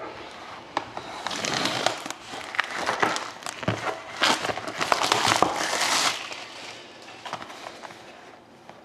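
Plastic shrink wrap being cut and peeled off a sealed cardboard box of trading cards, crinkling and crackling with small clicks. It is loudest in the middle and fades away over the last couple of seconds.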